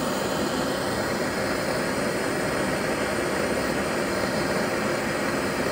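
Hand-held propane torch burning with a steady hiss, its flame heating a steel connecting rod.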